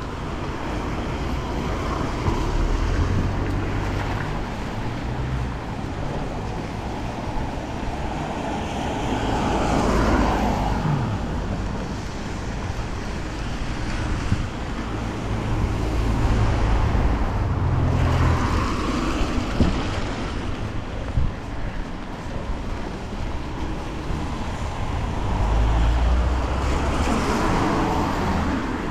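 Road traffic on a wet road: cars passing by, each swelling and fading, about three times, over a steady rumble of wind on the microphone.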